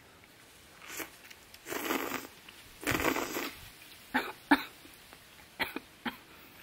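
A woman slurping spicy cup noodles and coughing as they make her choke: two longer noisy bursts about two and three seconds in, then a few short sharp clicks.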